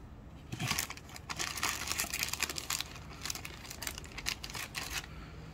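Clear plastic wrapper crinkling as a dog biscuit is handled and pulled out of it, a dense run of rustles that stops about five seconds in.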